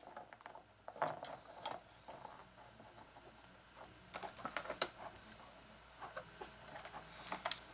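Scattered light clicks and taps of quadcopter frame parts and wired ESCs being handled and fitted together, with the sharpest click about five seconds in.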